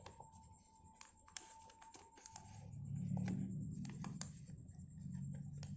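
Origami paper being folded and creased by hand: a run of small crisp clicks, taps and crinkles as the paper is pressed and tucked. A low hum swells up about halfway through.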